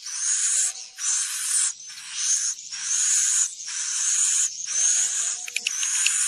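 Edible-nest swiftlets calling in a swiftlet-house lure recording: a string of about seven buzzy, hissing twitters, each under a second long, with short gaps between them. Rapid clicking joins in near the end.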